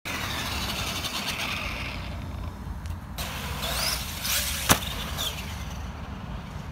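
Arrma Granite 4x4 BLX RC monster truck's brushless motor whining as it drives and jumps, its pitch rising and falling around the jump. A single sharp crack of the truck landing comes at about four and a half seconds in.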